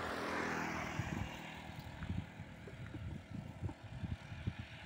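A propeller aircraft flying past: its engine noise swells to a peak within the first second, then fades away. Wind thumps on the microphone throughout.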